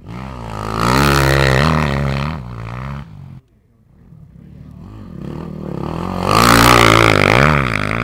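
Dirt bike engines revving up and down as riders pass. The first bike's engine cuts off abruptly about three seconds in. Another then approaches, growing louder to its peak about two-thirds of the way through, and begins to fade near the end.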